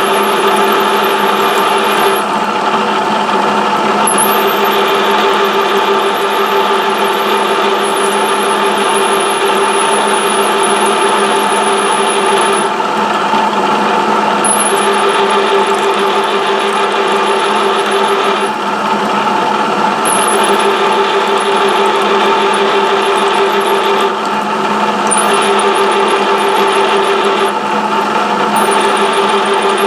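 Machine spindle running steadily while a twist drill peck-drills a deep hole into aluminum bar stock. The high cutting hiss breaks off and comes back every few seconds as the drill is backed out to clear chips and fed in again.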